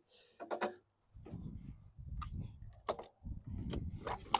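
Walk-behind lawn mower engine's recoil starter pulled several times, about once a second, the cord rattling out and the engine turning over without firing: a check that the engine turns and is not seized.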